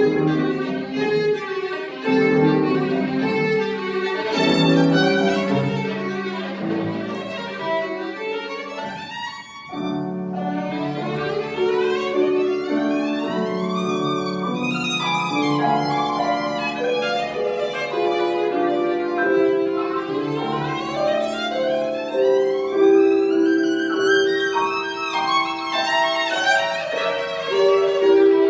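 Solo violin playing classical music with piano accompaniment, full of fast scale runs sweeping up and down, mostly after a short break about nine seconds in.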